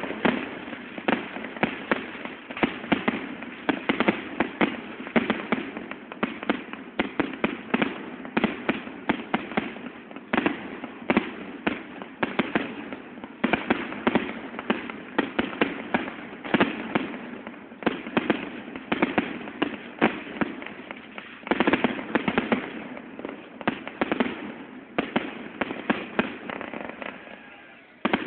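Fireworks and firecrackers going off in rapid, irregular succession: a dense run of sharp bangs and pops, several a second. The firing thins out for a moment near the end before another loud burst of bangs.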